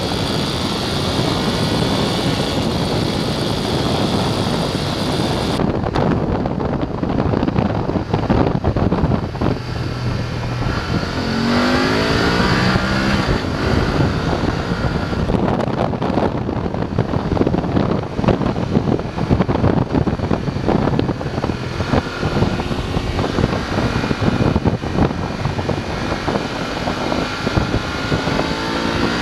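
BMW F850 GS parallel-twin engine pulling along on the road, under a steady rush of wind noise; its pitch climbs as the revs rise about twelve seconds in and again near the end.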